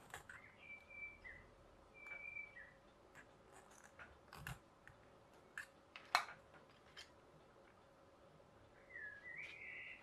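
Faint clicks and taps of a steel needle file and a 3D-printed plastic gear being handled and filed, the sharpest click about six seconds in. A few short, high chirps come near the start and again near the end.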